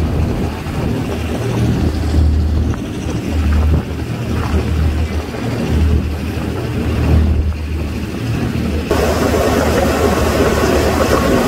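Amphibious duck tour vehicle's engine running as it cruises on the water, a low rumble that swells and fades. About nine seconds in, a louder rushing noise joins it.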